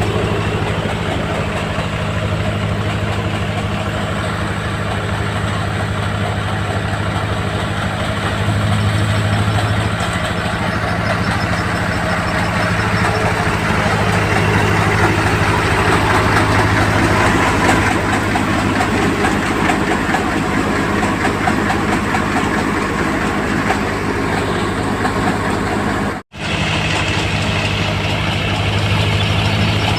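Engine of a soybean harvesting machine running steadily, with a steady low hum and a mechanical clatter over it. The sound cuts out for a moment near the end, then carries on.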